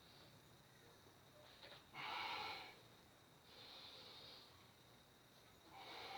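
A person breathing audibly, with a strong breath about two seconds in, a softer one about a second and a half later, and another strong breath near the end.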